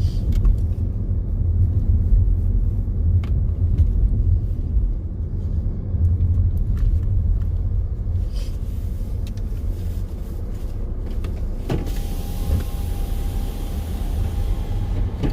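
Low rumble of a car heard from inside the cabin as it rolls slowly. About twelve seconds in there is a click, followed by a thin steady tone and more hiss.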